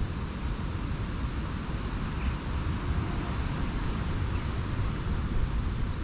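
Strong gusty wind: a ragged low rumble of wind buffeting the microphone, over a steady rush of wind through the trees.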